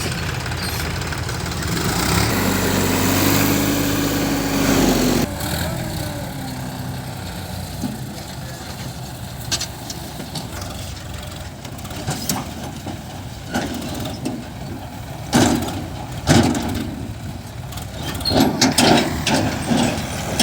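Diesel engine of heavy earthmoving or tractor machinery running, its speed rising and falling back about two to five seconds in, then dropping suddenly to a lower, steadier run with scattered knocks.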